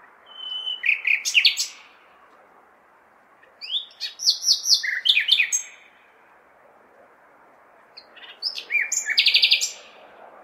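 Nightingale singing three phrases of rapid repeated notes, whistles and sliding notes, with short pauses between them, over the steady background hum of a big city.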